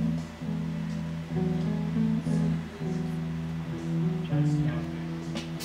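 Background music led by guitar, a run of plucked notes changing in pitch over a steady bass.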